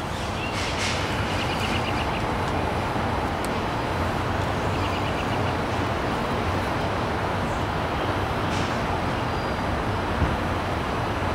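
Steady outdoor background noise, a low rumble with hiss, holding at an even level throughout. Two short runs of faint rapid high ticks come about a second and a half in and about five seconds in.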